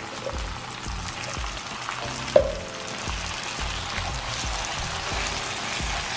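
Bacon, onion and white beans sizzling in a frying pan as a wooden spoon stirs them, with one sharp clink about two and a half seconds in.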